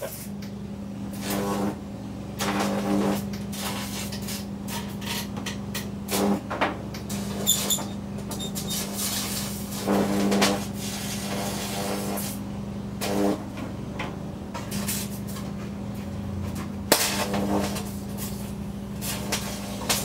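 Unballasted microwave oven transformer humming steadily while its high voltage arcs into a plasma TV panel, with repeated loud buzzing, crackling bursts of arcing every few seconds.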